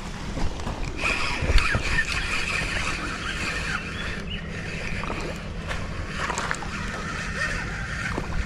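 Water sloshing and gurgling as a hooked rainbow trout is played near the bank, with an uneven splashy rush that picks up about a second in.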